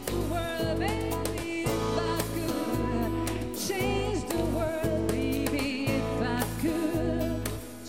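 Live band music: a woman singing the lead line with vibrato over classical guitar, piano and percussion.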